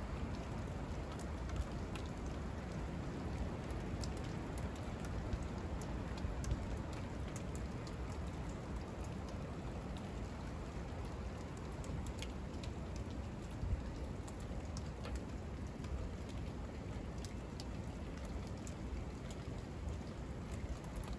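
Rain pattering steadily, with many small sharp ticks of drops hitting nearby surfaces.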